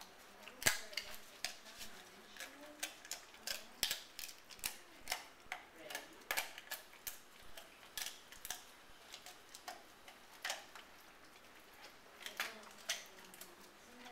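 Dog gnawing and crunching on a chew: irregular sharp cracks of teeth on it, one or two a second, with a gap in the later middle.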